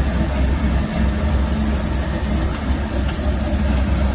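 A generator demonstration rig running under load with a blower heater switched on: a steady mechanical drone with a strong low hum.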